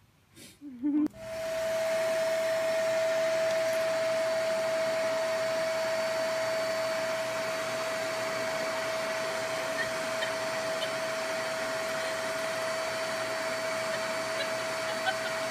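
Vacuum cleaner running steadily, a constant whine over an even hiss, coming in about a second in.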